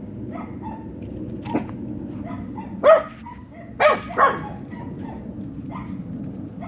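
Dogs barking in short, sharp single barks: a loud one about three seconds in, then two close together about a second later, over a steady low rumble.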